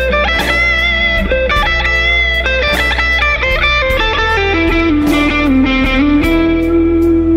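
Electric guitar playing a slow blues lead in A minor over a backing track with bass and drums. About halfway through it settles on a long low held note with vibrato.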